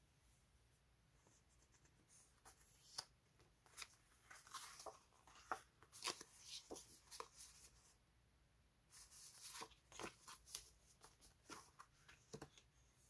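Faint rustling, sliding and soft tapping of paper label sticker sheets being handled and fanned out, with scattered light clicks; it goes quiet for a moment about two-thirds of the way through.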